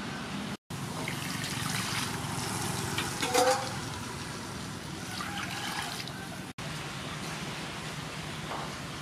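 Water splashing and sloshing in an aluminium basin as raw pork ribs are rubbed and rinsed in it by hand, with a brief louder splash about a third of the way in.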